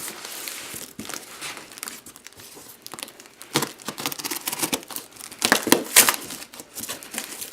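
Cardboard shipping box being opened: packing tape being cut and torn, with cardboard and packaging crinkling, in a series of short scraping and tearing strokes.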